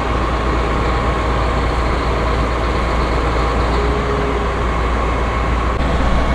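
Gleaner combine running steadily: a deep, even engine drone with a steady higher whine over it.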